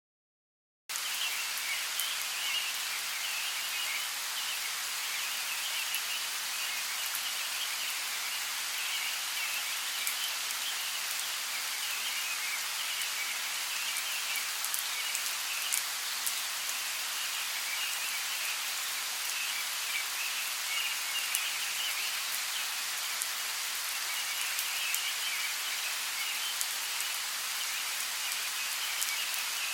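Steady rain falling on rainforest foliage, with the sharp ticks of single drops. A pulsing high chorus runs beneath it. The rain starts about a second in, after silence.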